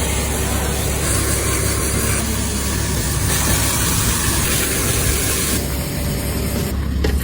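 Porsche 987.1's engine running with a steady low rumble and hiss, coming in suddenly at the start; the car is started to test the repaired power steering.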